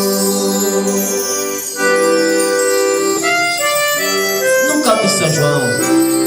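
Accordion playing held chords in São João forró-style music, the chords changing every second or so. About five seconds in, a brief wavering, sliding sound cuts across the music.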